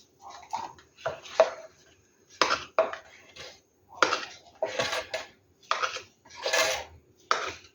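A small utensil scraping and clinking against a hard surface in a series of short strokes, as spilled pouring paint is scraped up.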